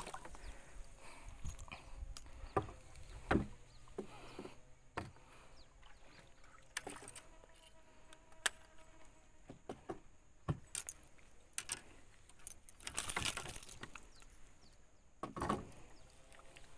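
Scattered light clicks, knocks and metallic jingling of fishing tackle, a metal spoon lure and its swivel, being handled in a small boat, with two louder rustling bursts near the end.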